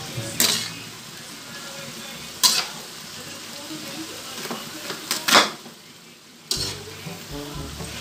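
Yard-long beans, pork and chicharon sizzling in an aluminium wok while a metal spatula stirs them, knocking and scraping against the pan about five times, loudest a little after five seconds in.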